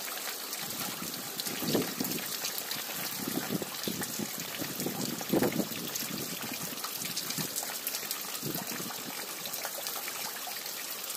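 Muddy floodwater flowing steadily, a continuous rushing and trickling of water, with a few faint brief swells.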